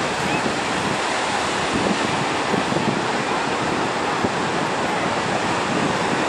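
Steady wash of small waves breaking on a sandy beach, with wind buffeting the microphone.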